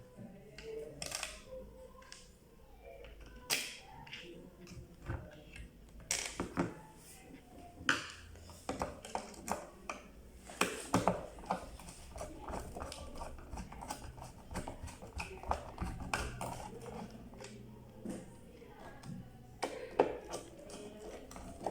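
Irregular clicks, taps and knocks of small hard parts and tools being handled, as a clothes iron is worked on by hand.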